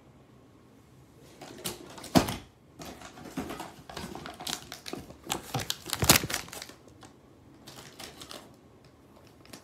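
Cardboard packaging and the metal bracket parts of a TV wall mount being handled: rustling and scattered clicks and knocks, with two sharper knocks about two and six seconds in.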